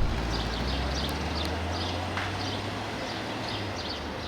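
Low, steady hum of the Mercedes-AMG SL 63's V8 idling, fading about three and a half seconds in, while a bird chirps repeatedly in short high calls.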